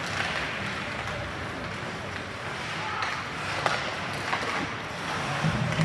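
Ice hockey play: a steady hiss of skates on the ice with a few sharp clacks of sticks and puck, and spectators' voices in the background.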